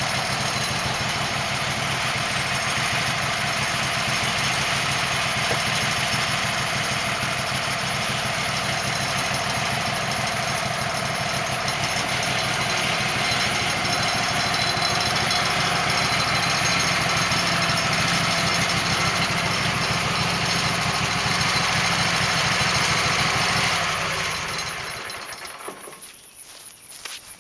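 Wood-Mizer portable band sawmill running steadily, its engine and band blade giving a loud, even drone with a hiss. About three-quarters of the way in it winds down and stops.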